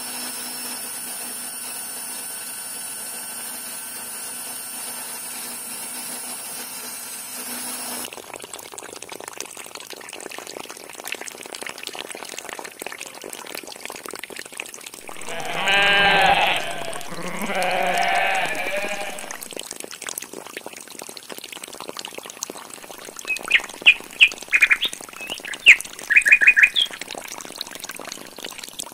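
A steady hum that cuts off about eight seconds in, then a wash of running water. Midway, two bleats in quick succession, and near the end a few short bird chirps.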